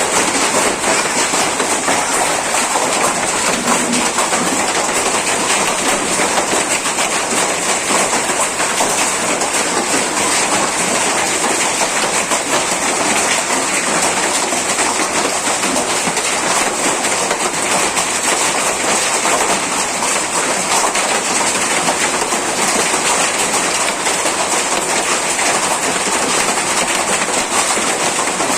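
Hailstorm: hailstones and heavy rain pelting down in a dense, steady clatter.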